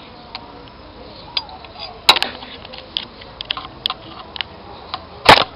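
Metal clicks and clinks of parts and hand tools at a connecting rod cap during engine bottom-end reassembly, with two louder knocks, one about two seconds in and one near the end.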